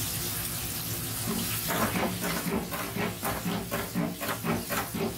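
Battered chicken pieces deep-frying in hot oil in an electric deep fryer: a steady bubbling hiss of the oil. From about two seconds in there is a run of faint choppy background sounds.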